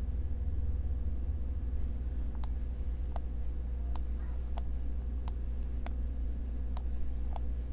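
Computer mouse clicking, about eight single clicks spaced irregularly through the second half, over a steady low electrical hum.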